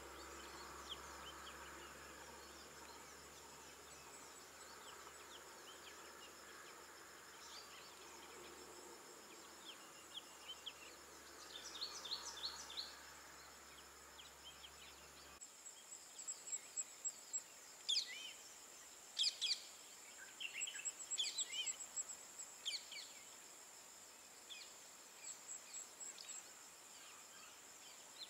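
Small birds chirping in short runs of calls, loudest in the second half, over a steady high insect drone. A faint low hum underneath cuts off abruptly about halfway through.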